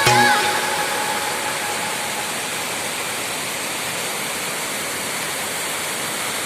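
Waterfall rushing: a steady, even noise of falling water. The tail of background music fades out in the first second or two.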